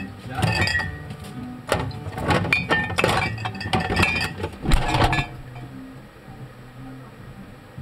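Glass bottles clinking and rattling against each other and the shelf as they are handled inside a refrigerator, heard from inside the fridge. About five seconds in the fridge door shuts and the sound drops to a dull low background.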